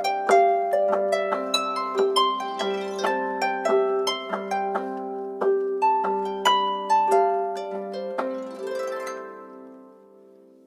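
A Samsung Galaxy Note 7 ringtone: a melody of quick plucked, harp-like notes, several a second, that fades out over the last couple of seconds.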